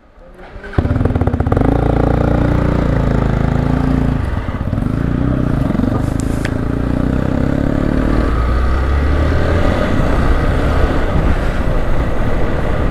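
Motorcycle engine running and pulling away, coming in suddenly about a second in, with its pitch rising and falling as the revs change.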